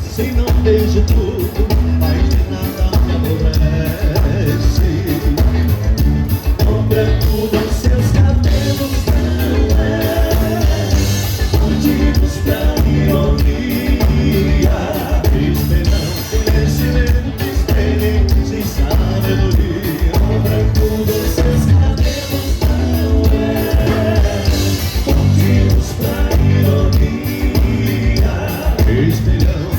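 Live gaúcho band music with a strong, steady bass beat and singing.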